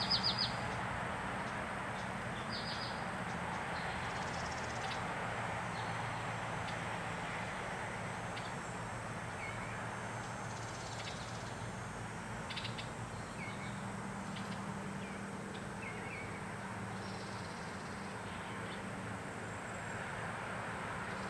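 Short, high bird chirps come and go over a steady outdoor background of low hum and noise. A quick run of chirps right at the start is the loudest, and fainter single calls are scattered through the middle.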